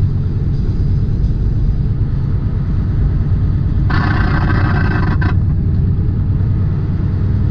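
Steady low rumble of a tractor-trailer's engine and road noise inside the cab while driving. A burst of higher-pitched noise lasting over a second comes about four seconds in.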